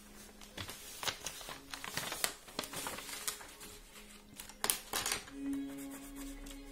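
Loose sheets of drawing paper rustling as they are shifted on a desk, with sharp clicks and taps. Faint background music comes in about five seconds in.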